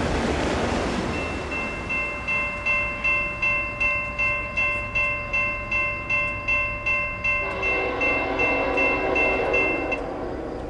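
Freight train cars rumbling past and fading out, then a railroad grade-crossing bell ringing a little over twice a second. From about seven seconds in, an approaching locomotive's horn sounds over the bell, and the bell stops near the end.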